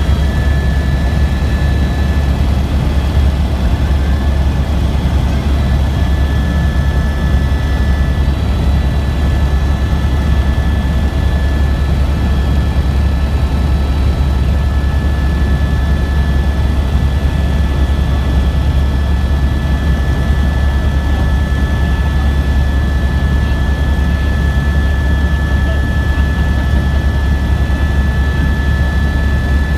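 Helicopter in flight heard from inside the cabin: a loud, steady drone of rotor and engine, with a constant high whine running over it.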